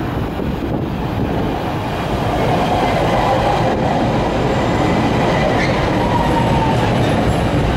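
Bombardier 5000-series rapid-transit train pulling into a station and slowing as its cars pass close by: a steady rail rumble that grows louder about two seconds in, with a high whine over it.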